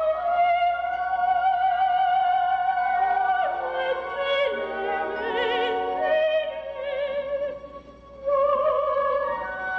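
Coloratura soprano singing an opera aria with orchestra. She holds one long high note over the first few seconds, then the music moves downward in steps. It goes quiet briefly about eight seconds in, then picks up again.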